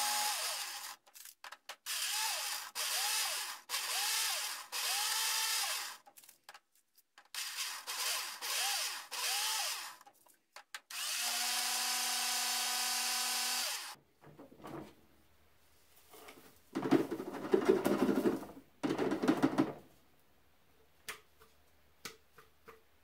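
Countertop blender grinding hard, dry pieces into powder, run in a string of short pulses that each spin up and wind down, then one steady run of about three seconds. After that, clattering knocks as the blender jar is taken off its base and handled, loudest for a few seconds in the second half.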